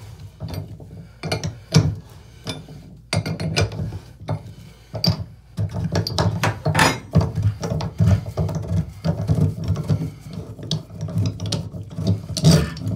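Repeated irregular metallic clicks and scrapes of a wrench and drain removal tool working a rusted bathtub drain flange loose, turn by turn, with clinks as the tool is handled.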